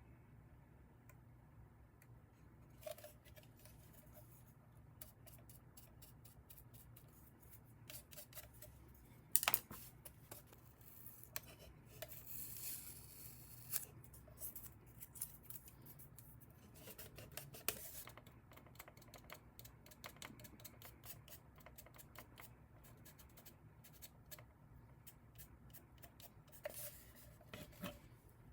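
Light, irregular clicking, tapping and scratching of small hand tools on a plastic figure, with a scratchy hiss about halfway through.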